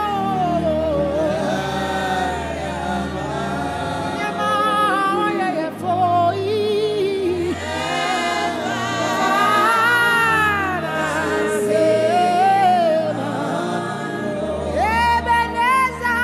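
Male lead vocalist singing a slow gospel worship song live, with long held notes and vibrato over band accompaniment with sustained bass, and backing voices. A second singer comes in near the end.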